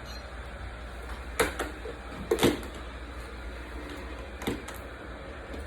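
Three sharp plastic clicks and knocks, spaced a second or two apart, from handling a robot vacuum-mop while trying to pull out its removable water tank, over a steady low hum.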